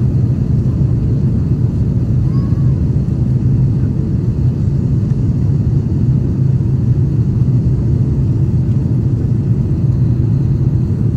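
Steady, low cabin rumble inside an Airbus A350-900 descending through cloud, heard from a window seat over the wing: engine and airflow noise.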